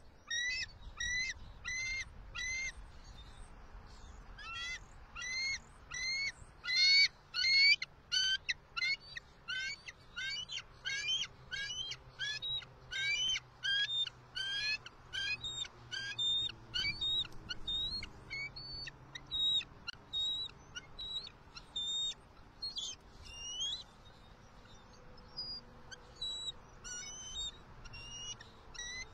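Bald eagle calling at its nest as its mate flies in: a long series of short, high, chirping notes, about two to three a second. The calls come in bouts, with a short pause about three seconds in and sparser notes after the middle.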